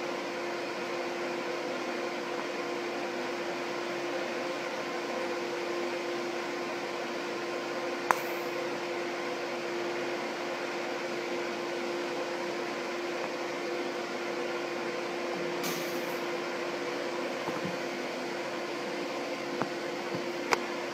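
TIG welding arc from an HF TIG inverter welder, burning steadily: an even hiss over a steady hum. A few sharp clicks cut in, the loudest about eight seconds in and two more near the end.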